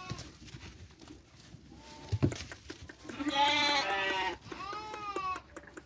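Sheep bleating: several calls, the loudest a long bleat about three seconds in, followed at once by another. A short knock comes about two seconds in.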